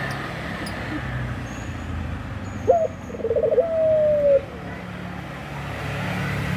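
Puter pelung (domestic collared dove) cooing once, a breeding-season call from a male wanting to mate. The call opens with a short rising note, then a quick stutter runs into a long, slowly falling coo about two seconds in, over a steady low rumble.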